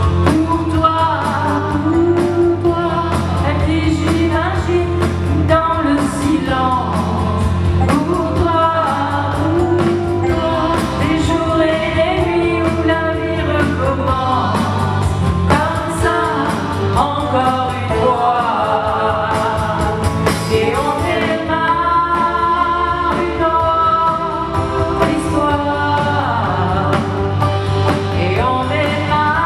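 A live band playing a song: a woman singing through a microphone over drum kit and keyboard backing, all amplified.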